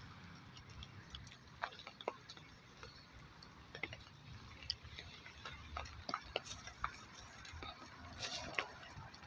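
Rain: scattered drops ticking irregularly on a hard surface, a few a second, over a faint hiss.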